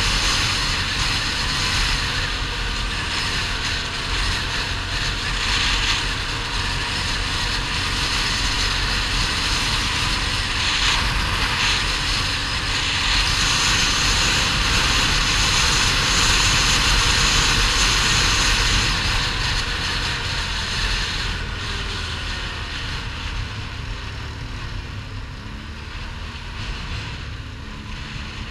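ATV engine running at road speed with wind rushing on the microphone. Over the last third it gets quieter and the engine note drops and settles as the quad slows down.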